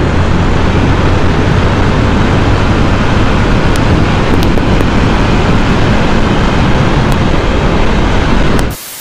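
Wind rushing over the microphone at road speed, with the steady drone of a Yamaha FZ V3's single-cylinder engine cruising underneath. The sound cuts off abruptly near the end.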